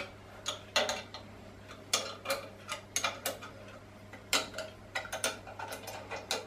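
Irregular light metallic clicks and taps of a hand tool working a bolt on the steel stabilising bracket of a round-column mill-drill head.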